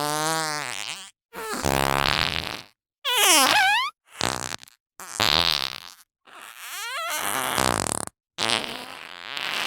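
A run of about seven cartoon fart sound effects made by squeezing fart putty, each roughly a second long with a short silence between. Several of them slide up or down in pitch.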